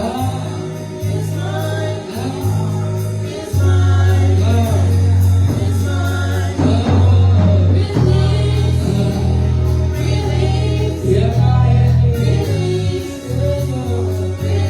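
Live gospel worship music: voices singing over a band with a deep sustained bass that changes note every second or two and a steady beat.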